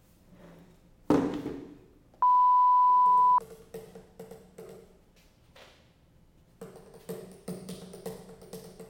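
A sudden loud knock about a second in, then a single steady, high electronic beep lasting about a second that starts and stops abruptly. Later, a run of small clicks and taps from a small object being handled in the hands.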